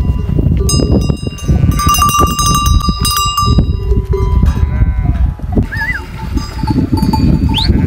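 Bells on a flock of sheep and goats clanging and ringing irregularly as the animals move, with a few bleats. A constant low rumbling noise runs underneath.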